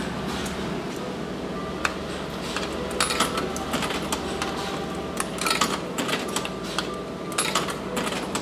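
100-yen coins fed one by one into the coin slot of a retro udon vending machine, each clinking and rattling down through the coin mechanism, three times about two seconds apart, over a steady hum.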